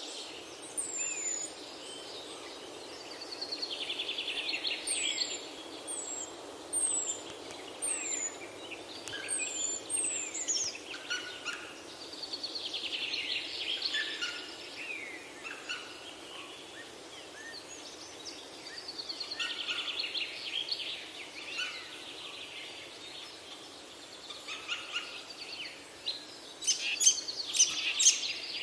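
Several songbirds singing: one bird repeats a rapid trilling phrase about every seven or eight seconds, another gives short high down-slurred whistles in the first ten seconds, and sharp loud chirps come near the end, over a steady low hiss.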